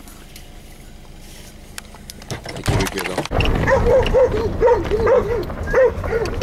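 Several dogs barking repeatedly, a few barks a second, starting about three and a half seconds in, heard from inside a moving car; a brief low rumble comes just before the barking starts.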